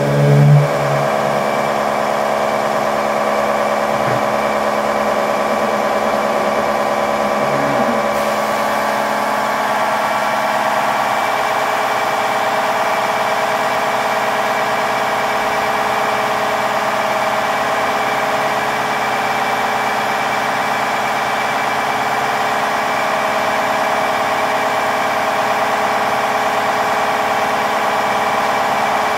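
Drive of a laboratory wood-densification press running with a steady, many-toned mechanical hum as the press closes and loads a wood specimen in compression. It comes on right at the start, and a lower tone in it drops out about 11 s in.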